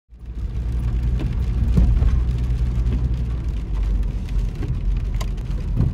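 Road noise inside a car's cabin while driving on a rain-wet road: a steady low rumble with the hiss of wet tyres and a few faint ticks.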